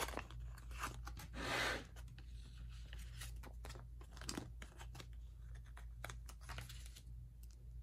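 A planner sticker being peeled from its paper backing sheet with metal tweezers. A short papery ripping sound comes about a second and a half in, followed by light crackles and clicks of the sheet being handled, which die away near the end.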